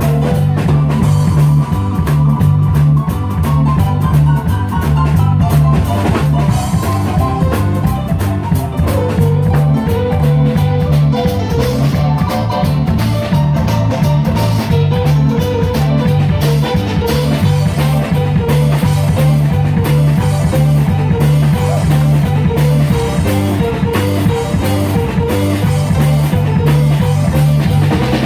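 A live band playing an up-tempo boogie-woogie instrumental: a keyboard carrying the melody over a drum kit and an electric bass. The bass repeats a rocking two-note figure throughout.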